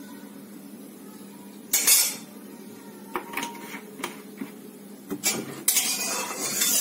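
Metal spatula clinking and scraping around an oiled karai (wok), spreading the oil over the pan so the fish won't stick. A loud clatter comes about two seconds in, a few light clinks follow, and steady scraping fills the last second and a half.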